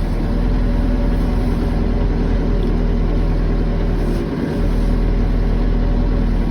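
Backhoe's diesel engine running steadily while it works, dipping slightly for a moment about four seconds in.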